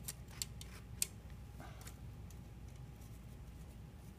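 Faint clicks and light scraping of a small hex driver turning screws through a quadcopter frame's bottom deck into metal standoffs. The sharpest click comes about a second in.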